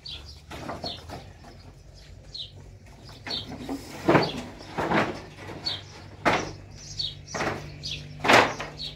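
Irregular knocks and scrapes, the sharpest about four, five, six and eight seconds in, with a small bird chirping over and over.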